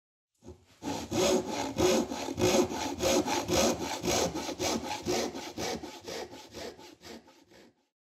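Hand saw cutting through wood in even back-and-forth strokes, about two a second, starting about a second in and fading out near the end.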